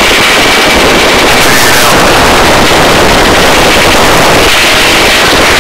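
Loud, steady rushing noise of a hovering rescue helicopter: rotor, turbine and wind, taken in at the open cabin door during a hoist.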